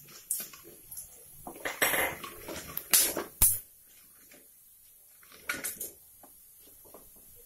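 A wooden spatula stirs and knocks against a metal kadhai while cumin, mustard and coriander seeds crackle in hot mustard oil, giving scattered clicks and knocks. The two sharpest come about three seconds in.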